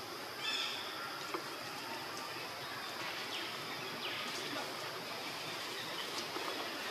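Outdoor forest ambience: a steady hiss with a constant high whine running through it. A short high call comes about half a second in, and two brief falling calls follow near the middle.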